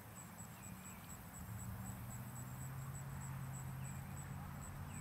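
Insect chirping steadily in high, even pulses, about four a second, over a steady low hum that grows a little louder about a second and a half in. A few faint bird chirps.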